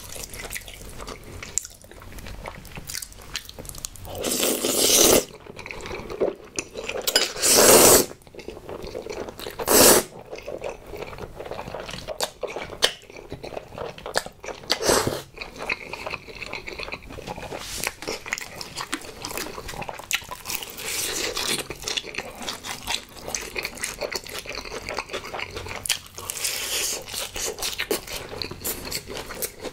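Close-miked eating sounds: several loud slurps of cream pasta noodles in the first half, then steady wet chewing with crunching of fried honey chicken drumsticks.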